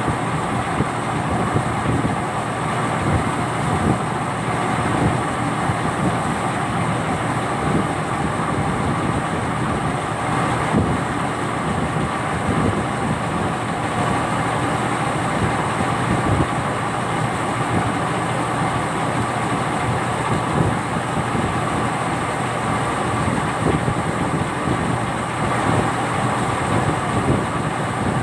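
Turbocharged truck engine powering a boat, running steadily at a constant speed.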